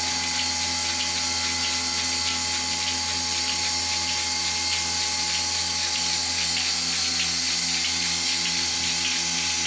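Portable milking machine running: the steady hum of its electric vacuum pump with a rhythmic pulse about twice a second.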